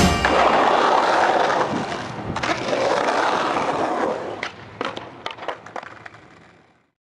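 Skateboard wheels rolling on rough concrete, with several sharp clacks of the board near the end, the sound fading out.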